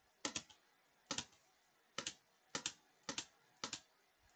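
A computer mouse button clicking about six times at a steady, unhurried pace, each click a quick double tick of press and release, as it ticks a list of checkboxes one after another.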